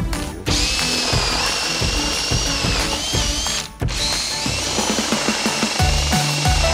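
Cordless drill spinning a Star M F-style bit into a pine board: a steady high motor whine that sags slightly in pitch as the bit bites, broken off briefly about half a second in and again just before four seconds. Background music with a bass line plays underneath.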